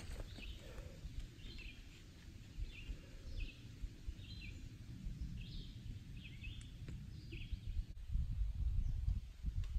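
A songbird repeating a short, falling chirp note roughly once a second, over a low rumble of wind on the microphone that grows louder near the end.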